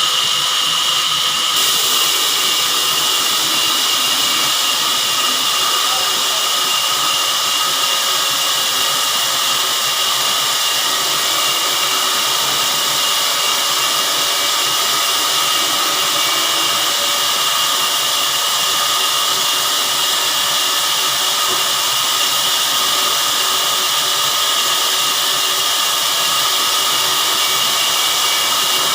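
Sawmill machinery running: a loud, steady whir with a hissing top, unchanging throughout.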